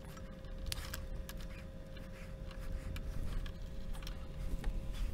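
Scattered small clicks and knocks of hands fitting parts back onto a benchtop spectrum analyzer during reassembly, over a steady low background hum.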